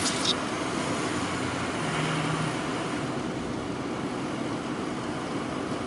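Steady driving noise of a car, engine and tyres running evenly, with a brief low hum about two seconds in.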